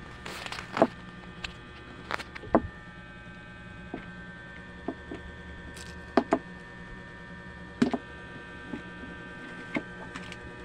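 Small billiard balls clacking against each other and the plastic triangle rack as they are packed and adjusted by hand: a dozen or so sharp, separate clicks at irregular moments over a steady low hum.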